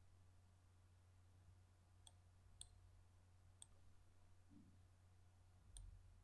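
Near silence with a few faint, sharp computer mouse clicks, four in all.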